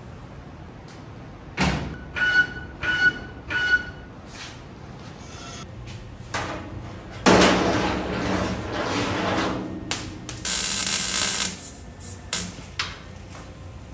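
Metal fabrication work: a knock, then three ringing metal strikes a little over half a second apart. A few seconds later comes a stretch of rough scraping noise, then a hiss.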